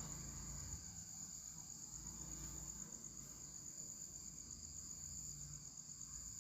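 Insects chirring in a steady high trill, with a faint low rumble underneath.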